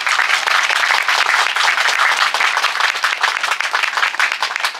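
Audience applauding: dense, steady clapping from many hands.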